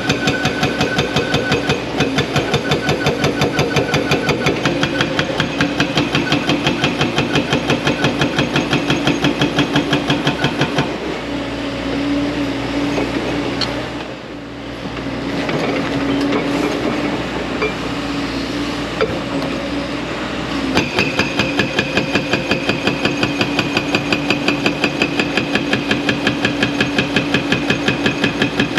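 Excavator-mounted hydraulic breaker hammering with rapid, even blows, about five or six a second. It stops about 11 seconds in, leaving the excavator's engine running on its own for about ten seconds, then starts hammering again.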